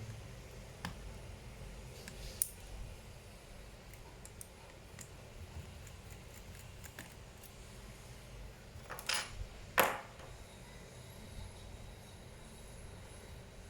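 Scattered light clicks and taps of small tools and plastic or metal parts as a laptop is taken apart by hand, with two louder knocks about nine and ten seconds in.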